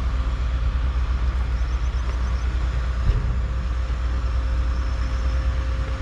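Steady drone of heavy construction machinery engines across a building site, over a constant low rumble.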